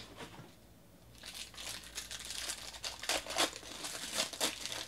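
A foil baseball card pack wrapper being torn open and crinkled by hand. It starts about a second in, as a run of sharp crackles and crinkles.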